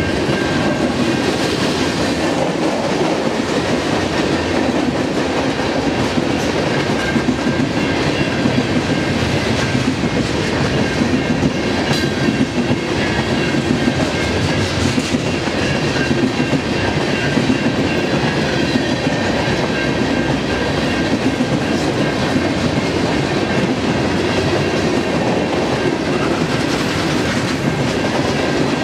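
Grain cars of a freight train rolling past, with steady, loud wheel-on-rail noise that holds unbroken throughout.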